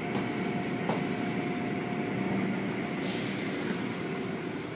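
Automatic tunnel car wash running: steady machinery noise and water spray as the foam and cloth curtains pass over a car, with a louder hiss of spray coming in about three seconds in.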